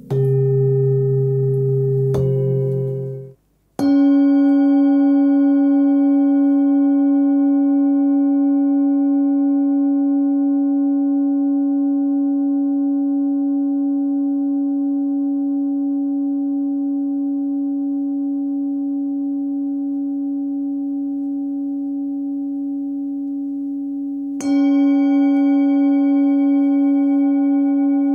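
Hand-forged singing bowl, 15.8 cm, tuned to C# at about 282 Hz, struck once: it rings with a strong steady tone, a slow wavering and several higher overtones, fading gradually over some twenty seconds, then is struck again near the end. Before the first strike, a short gong-like tone at a different pitch plays and cuts off abruptly.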